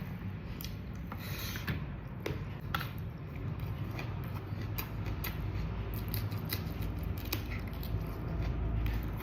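Eating sounds of chicken and rice: chewing and mouth noises with scattered small clicks over a steady low rumble.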